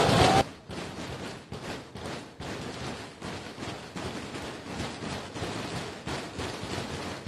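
Loud crowd cheering that cuts off abruptly within the first half-second, followed by the rough, crackly noise of a packed crowd of football fans heard through a phone microphone, with irregular short spikes and no clear words.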